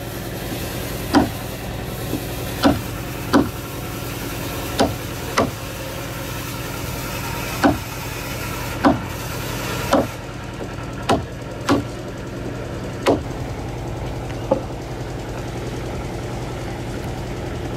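Wooden mallet striking a chisel into a boat timber: about a dozen sharp knocks at uneven intervals, roughly one a second, stopping about three-quarters of the way through. A steady engine drone runs underneath.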